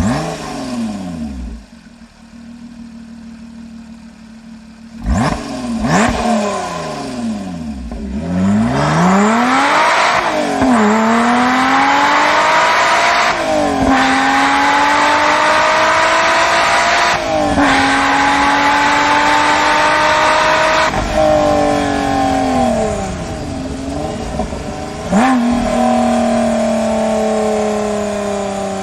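A performance car's engine and exhaust. It idles and is blipped in quick sharp revs, then accelerates hard through several gears, the pitch climbing and dropping back at each of about four upshifts. It then comes off the throttle, with one more short blip before settling into a lower steady drone.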